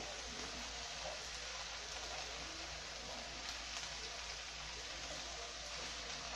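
Broad beans and onion sizzling steadily in oil in a frying pan while being stirred with a wooden spoon, with a few faint clicks of the spoon against the pan.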